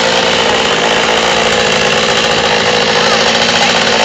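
Chainsaw engine running at a steady, unchanging pitch.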